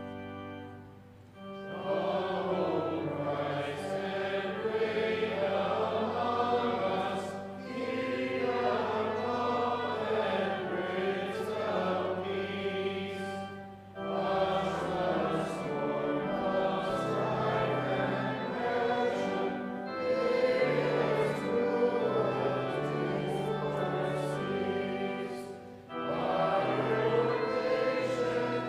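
A hymn sung by many voices over held accompaniment notes, phrase by phrase, with a short pause between lines about every six seconds.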